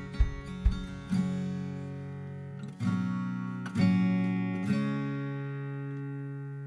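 Background instrumental music on acoustic guitar: chords strummed a few times and left to ring out and fade, with soft low beats in the first second.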